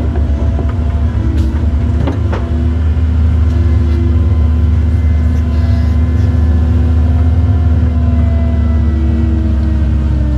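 Cat 309 mini excavator's diesel engine and hydraulics running steadily while digging, heard from inside the cab, with a few light knocks about two seconds in.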